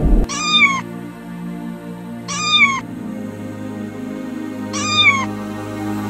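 A kitten meowing three times, about two seconds apart, each a short high call that rises and falls, over soft background music.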